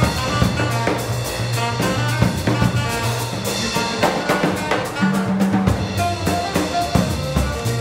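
Jazz sextet playing: horns with vibraphone, double bass and drum kit in a dense, busy passage, the drums striking throughout over sustained bass notes.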